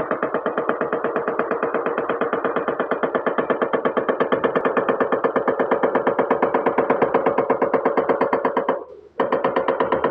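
Background music with a fast, steady plucked or synthesized pulse that breaks off briefly about nine seconds in, then resumes.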